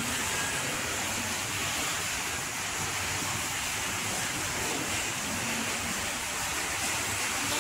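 Steady rushing water in a hippo pool: an even hiss that does not change.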